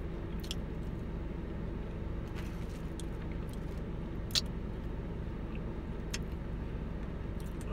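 Steady low hum of a car, heard inside its cabin, with a few scattered sharp clicks and crunches from eating crispy fried chicken; the loudest click comes a little past halfway.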